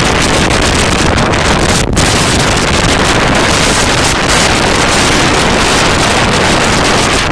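Gale-force wind buffeting the microphone: a loud, continuous rumbling rush.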